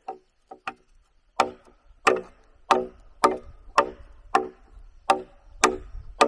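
Repeated blows of a tool on wood: a few light taps, then about nine sharp, evenly spaced strikes, a little under two a second, each with a brief ringing tone.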